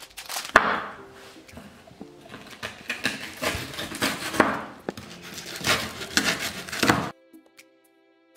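Large kitchen knife chopping a slab of Peppermint Crisp chocolate on a wooden cutting board: a quick, uneven run of knocks as the blade cuts through the chocolate into the board. The chopping stops abruptly about seven seconds in, leaving faint soft background music.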